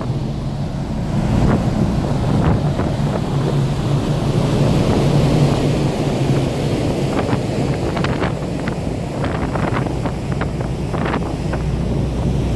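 Wind buffeting the microphone on the open deck of a car ferry under way, over the steady low hum of the ship's engines, with occasional short ticks in the second half.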